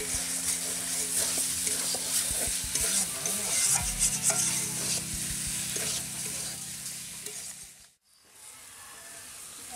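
Potatoes frying in oil in a metal wok (kadai): a steady sizzle with the scrape and clatter of a spatula stirring. The sound cuts out suddenly near the end and comes back quieter.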